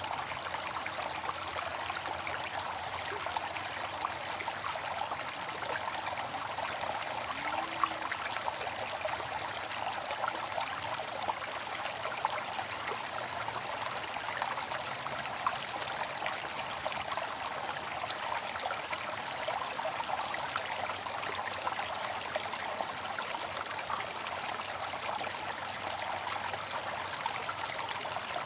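Water fountain running, with water splashing and trickling steadily.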